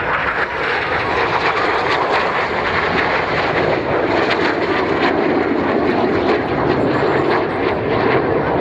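BAe Hawk jets flying past, their Rolls-Royce Turbomeca Adour turbofans making a loud, steady jet rush.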